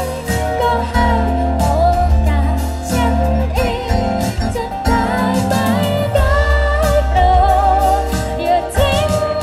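Live performance of a Thai pop song: a band playing with sung vocals over it and a steady drum beat.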